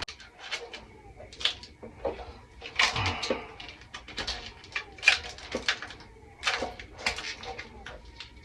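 Handling noise: irregular light clicks and short rustles, a few every second.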